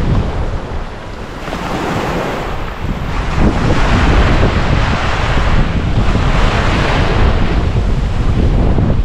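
Ocean surf breaking and washing up the beach, a steady rushing that swells louder about three seconds in, with wind buffeting the microphone as a low rumble.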